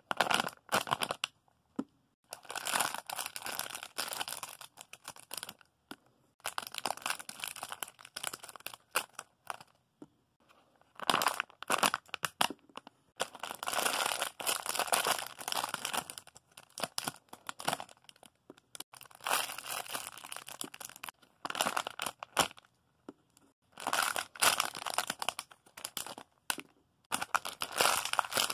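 Plastic packaging crinkling and rustling in repeated bursts, a few seconds each with short pauses between, as small packaged items are handled and sorted.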